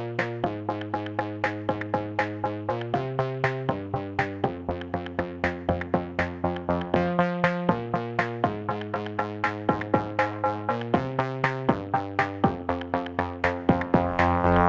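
Background electronic music: a quick, even run of short repeated synth notes, about four a second, over chords that change every second or two.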